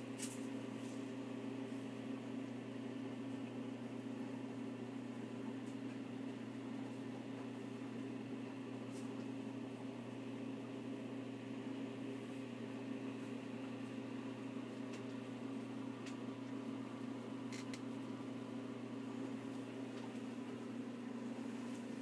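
A steady low hum, as from a running appliance or fan, with a few faint clicks.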